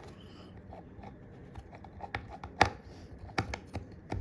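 Sporadic small clicks and taps of hand tools and parts being handled on an iPhone XR under repair, the loudest about two and a half seconds in.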